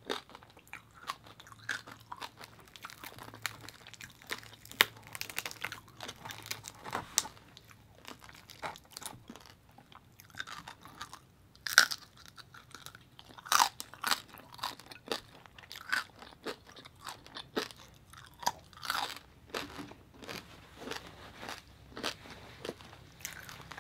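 A person chewing roasted pig head (lechon) meat and skin close to the microphone: irregular crunches and wet chewing, with a few louder crunches about twelve, thirteen and nineteen seconds in.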